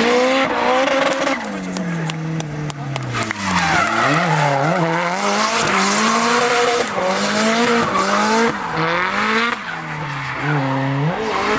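Opel Ascona B drift car's engine revving hard, its pitch rising and falling again and again as the driver works the throttle through a slide, with the rear tyres squealing as they spin and smoke.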